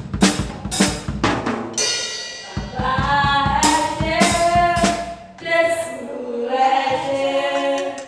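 Live drum kit playing a beat, with voices singing a gospel praise song over it from about two seconds in.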